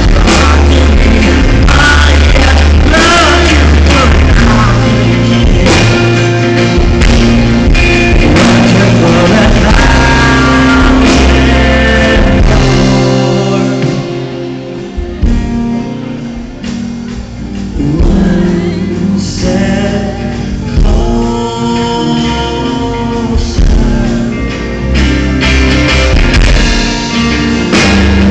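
Live band music: a male singer with acoustic guitar, electric guitar and drum kit. About halfway through, the band drops to a quieter sung passage, then builds back up near the end.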